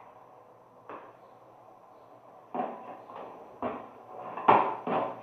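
Knocks and clatters of plastic washing-machine parts being handled during disassembly: one light knock about a second in, then a run of sharper knocks over the last few seconds, the loudest near the end.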